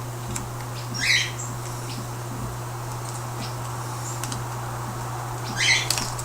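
Paper wrapper of a krówka cream fudge being unwrapped: two brief crinkles, about a second in and again near the end, with a few faint ticks, over a steady low hum.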